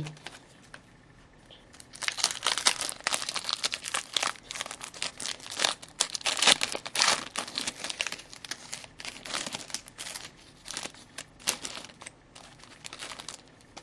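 Foil wrapper of a trading-card pack being torn open and crinkled: a dense run of crackles that starts about two seconds in and goes on until near the end.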